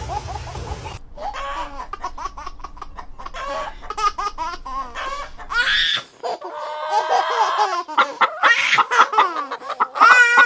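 Chickens clucking in quick, choppy calls, with a rooster crowing around the middle and again near the end.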